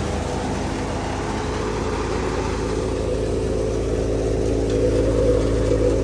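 Tractor-driven wheat thresher running steadily while threshing, a continuous machine hum of engine and thresher.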